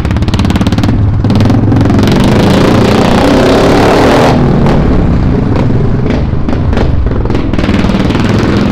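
Royal Enfield Classic 350's single-cylinder engine running under way, heard from the saddle as a fast, even beat of exhaust pulses. The revs climb from about a second in, then drop off sharply about four seconds in, and the engine settles back to a steady low-rev run.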